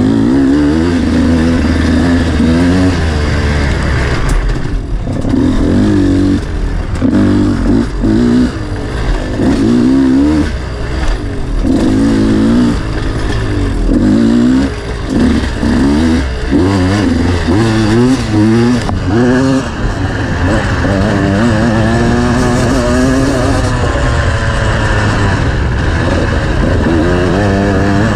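Off-road motorcycle engine revving up and down again and again as the throttle is opened and closed, about once a second, with a longer, steadier pull about two-thirds of the way through.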